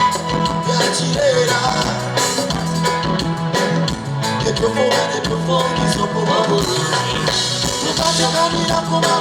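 Band music with a steady beat and held bass notes, with a voice singing over it at times.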